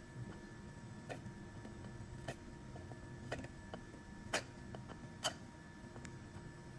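Flush cutters snipping stray plastic strands off a 3D-printed part: a series of sharp clicking snips, about five spaced roughly a second apart, the loudest a little past the middle.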